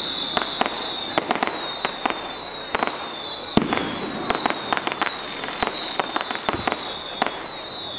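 Aerial fireworks display: an irregular string of sharp bangs and crackling pops from bursting shells, at times several a second, over a steady high hiss.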